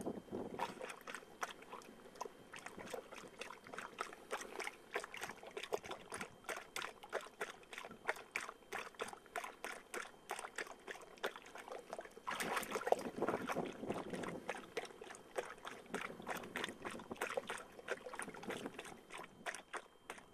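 A pointer dog lapping water with its tongue while lying in a water tank: a quick, steady run of wet laps, about three a second, with some sloshing of the water around it, louder for a couple of seconds a little past the middle.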